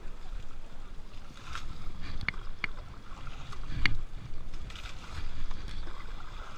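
River water splashing and sloshing as plastic buckets are scooped through the shallows and poured over an elephant. A few sharp clicks break through, the loudest about four seconds in.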